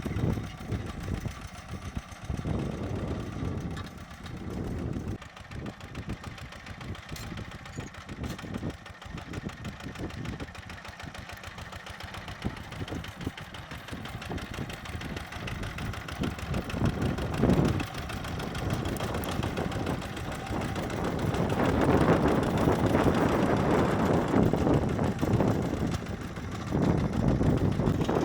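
Zubr walk-behind tractor's engine running as it works its rotary tiller through the soil, getting louder for the last several seconds.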